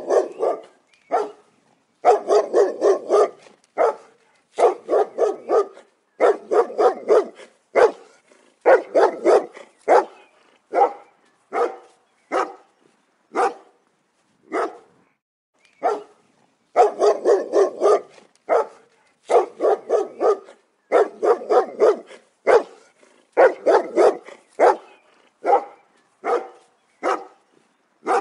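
A dog barking loudly and repeatedly, in quick volleys of several barks separated by brief silent gaps.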